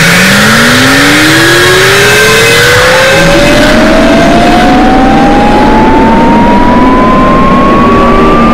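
A single pure electronic tone sweeping slowly and steadily upward in pitch, from a low hum to a high whistle, layered over a loud, dense noisy mix of other sounds. A second steady tone underneath fades out about three seconds in.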